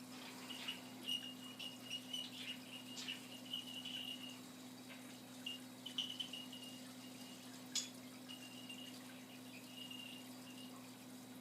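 Vintage Robbins & Myers Hunter ceiling fan motor running on low speed with a steady electrical hum. Faint high-pitched chirps come and go irregularly over it, with a few small clicks.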